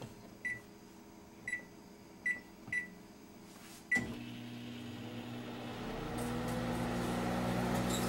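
Microwave oven keypad beeping five times as the time is entered and started, then the oven starts running with a steady low hum that grows louder about two seconds later.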